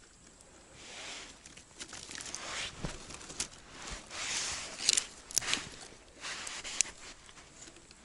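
Crunching and rustling in snow broken by several sharp snaps, the loudest about five seconds in, as dry wood is gathered and broken to make a campfire.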